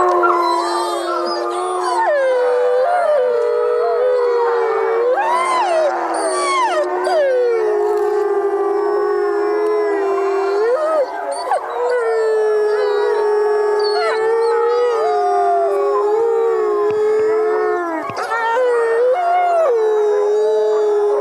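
A pack of wolves howling together in chorus: one low howl held steady underneath while several higher voices rise and fall over it.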